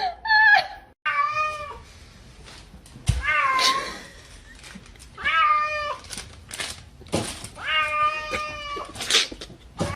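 A domestic cat meowing repeatedly, about five drawn-out meows, the last one the longest, with a few short knocks in between.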